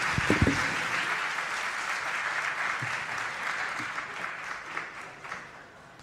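Audience applauding, a steady clapping that dies away over the last couple of seconds.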